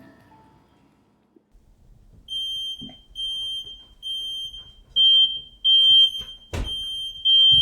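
Smoke alarm beeping in a steady run of high-pitched beeps, a little more than one a second. It starts about two seconds in and gets louder about halfway through, set off by food burning on a stove burner. A short thud sounds near the end.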